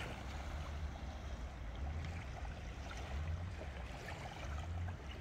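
Outdoor background noise at the harbour's edge: a low, uneven rumble under a faint even hiss, with no distinct events.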